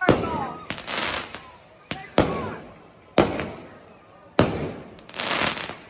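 Aerial fireworks bursting overhead: about five sharp bangs, each trailing off over about a second, with spells of crackling between them.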